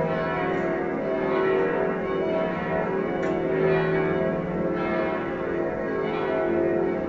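Church bells ringing a festive peal: several bells struck again and again, their tones overlapping and ringing on without a break.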